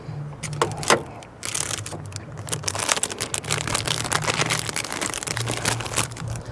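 Dense crinkling and crackling with many small irregular clicks, from handling new oil-filter parts and their packaging, over a low wind rumble on the microphone.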